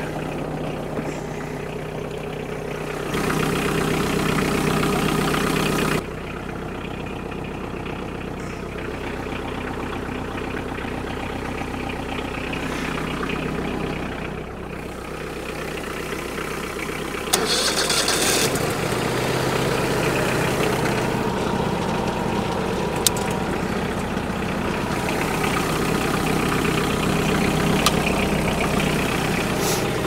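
Tractor engine idling steadily. A little past halfway through, the Wood-Mizer LT40 sawmill's engine cranks and catches on a jump-start from the tractor, its battery drained, and the two engines then run together.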